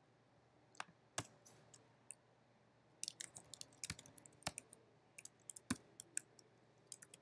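Keystrokes on a computer keyboard, faint: a few separate clicks in the first two seconds, then a quick run of typing from about three seconds in.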